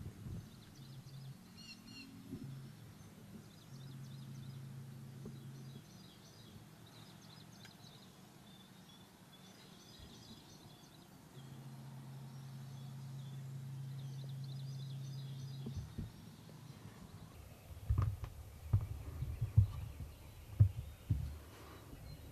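Faint songbirds chirping in the background over a low, steady drone that comes and goes twice. Near the end comes a run of short, soft thumps.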